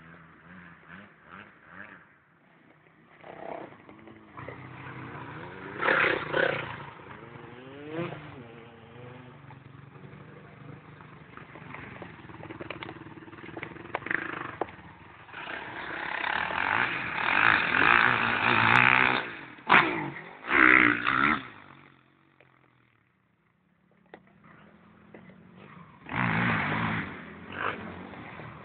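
Honda motocross bike engine being ridden hard, revving up and down over and over, with a long loud stretch of hard throttle about halfway through. It drops briefly to near silence before picking up again near the end.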